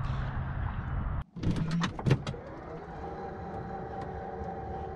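A low outdoor rumble, then after an abrupt cut a few sharp clicks and knocks inside the SUV, followed by a steady faint motorised hum with a light whine.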